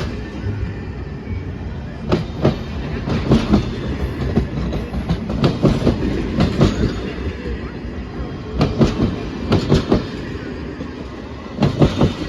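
A passing train's wheels clacking over rail joints: sharp clicks, mostly in pairs, over a steady low rumble.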